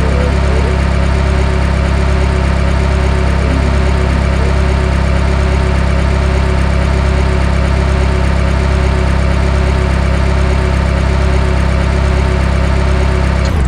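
Recorded car engine sound from the Electude diagnostic simulator, idling steadily, cutting off suddenly at the very end.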